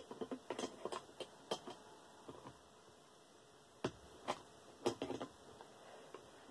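Scattered light clicks and taps of tools and metal fan parts being handled while dismantling a desk fan: a quick cluster in the first second and a half, a few more around four to five seconds in.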